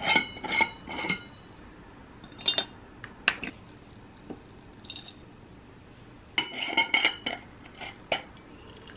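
A metal spoon and glass jars clinking while dried herbal tea is scooped from a mason jar into a glass bottle: short clinks with a brief glassy ring, in several clusters, the busiest near the start and again about six and a half to seven seconds in.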